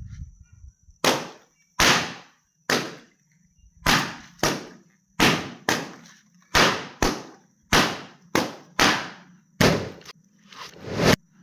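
Water-filled balloons popping one after another, about sixteen sharp bangs at uneven gaps of roughly half a second to a second, each dying away quickly.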